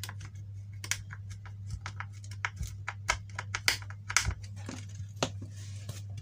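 Irregular small clicks and taps as hands fasten a salvaged amplifier transformer to its base plate with screws and nuts, over a steady low hum.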